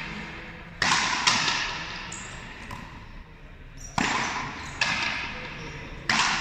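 Frontenis rally: the rubber ball cracking off the rackets and smacking against the frontón wall, about five sharp hits in pairs roughly half a second apart. Each hit rings on in a long echo through the big hall.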